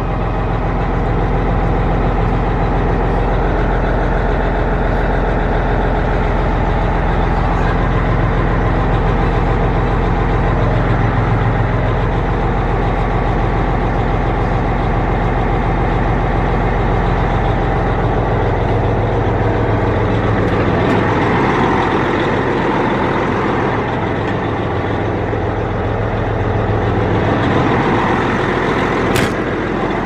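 Diesel semi-truck engine running at a raised idle just after a cold start, warming up in freezing weather, heard from inside the cab. The note steadies and changes about two-thirds of the way through, and a single sharp snap sounds near the end.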